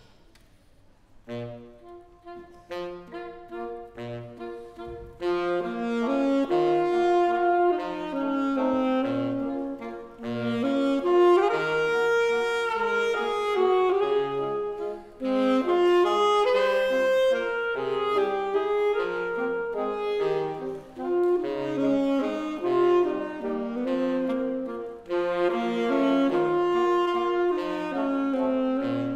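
Saxophone quartet of soprano, two alto and tenor saxophones playing a waltz. The music enters softly about a second in, with separate low notes beneath, and is full and loud from about five seconds on.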